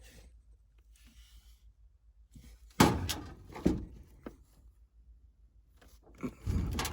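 A few sudden knocks and thumps of things being handled: the loudest about three seconds in, a second just after, and another cluster near the end.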